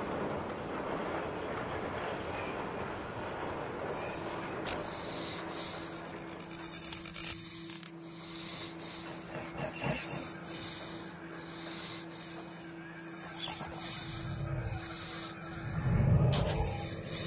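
Electronic techno intro: a scraping noise texture, joined about four seconds in by a steady drone and evenly repeating hissing pulses. Heavy bass thumps come in near the end.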